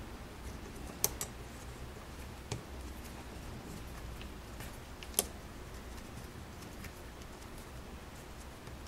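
Small screwdriver driving the screws of a replacement circuit board into a hard drive: a few light, sharp clicks, the loudest about five seconds in, among fainter ticks, over a low hum.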